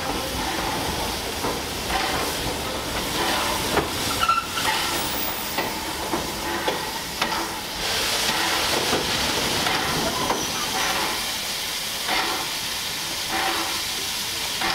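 Steam locomotive hissing steadily, with a run of short knocks about every half second to a second.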